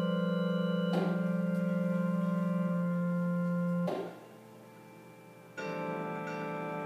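Organ holding a sustained chord with a wavering low note, with a click about a second in; just before four seconds in the chord cuts off with a click, faint held tones remain, and about five and a half seconds in a fuller chord of layered sustained tones comes in.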